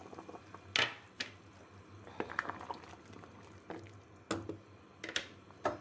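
Sliced lotus root going into a pot of boiling soup, with several short splashes and knocks over the bubbling of the broth.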